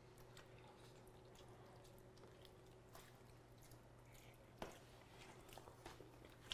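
Near silence: room tone with a steady low hum and a few faint clicks, the loudest about four and a half seconds in.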